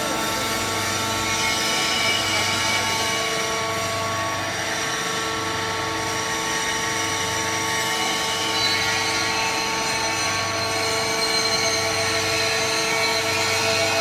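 Hydraulic power unit of a horizontal baling press, its electric motor and pump running steadily with a hum and several steady whining tones.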